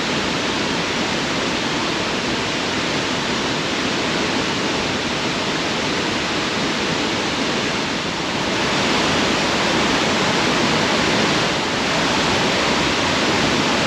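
Waterfall pouring steadily, a constant rush of falling water that grows a little louder about eight and a half seconds in.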